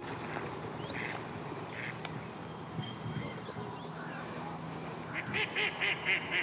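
Waterfowl calling by a lake: a run of rapid, repeated calls starts about five seconds in, over a faint high, rapid trill.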